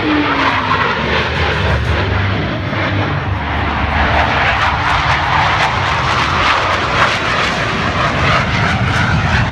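Loud jet engine noise from fighter jets flying low past. A falling pitch fades out in the first half second, then a steady wash of engine noise that swells in the middle.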